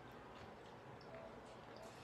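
Near silence: faint chewing, with a few soft mouth clicks.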